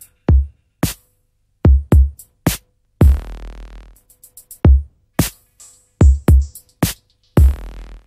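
Electronic music: a sparse drum-machine beat of deep kick drums and sharp clicks, with a longer hissing hit about three seconds in and again near the end.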